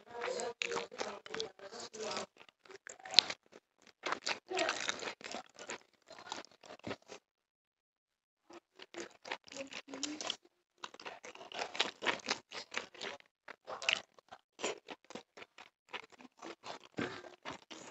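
A man eating chicken and rice by hand: chewing with many short clicks and crackles, and fingers working rice on a banana leaf. The sound drops out completely for a little over a second near the middle.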